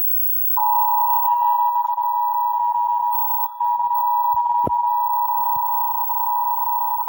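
Emergency Alert System attention signal: a loud, steady two-tone alarm that starts about half a second in and holds, with a brief dropout around the middle. It signals an emergency broadcast about to follow.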